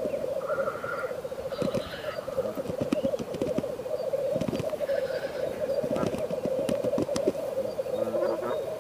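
Displaying male black grouse rookooing: a continuous bubbling coo, with a few short hissing calls and scattered sharp clicks over it.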